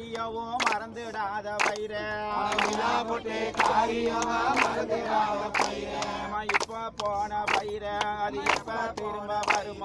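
A group of voices singing a devotional chant together, over sharp regular beats about once a second and a steady low drone.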